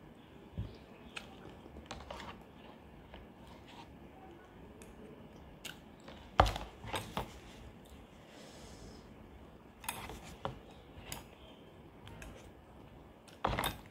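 A person eating cup noodles with chopsticks: chewing and slurping noodles, with scattered clicks of the chopsticks against the cup. The loudest are a sharp knock about six seconds in and a short slurp near the end.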